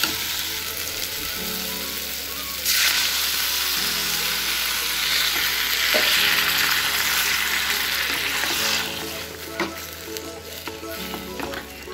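Mango pieces and grated coconut sizzling in a hot kadai while being stirred with a metal spatula; about three seconds in the sizzle jumps louder as water goes into the hot pan, then dies down near the end with a few clicks of the spatula against the pan.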